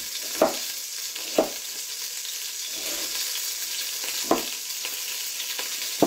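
Beef searing in hot oil in a pot, a steady sizzle, with three knife chops through carrots on a cutting board: about half a second in, at a second and a half, and after about four seconds.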